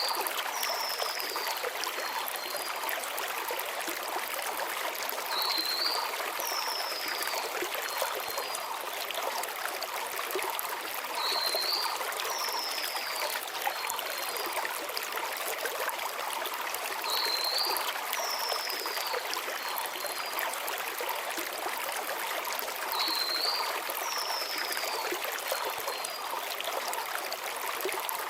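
Mountain stream flowing steadily over stones, with a small bird singing the same short phrase about every six seconds: a brief rising note followed by a falling slurred whistle and two faint short notes.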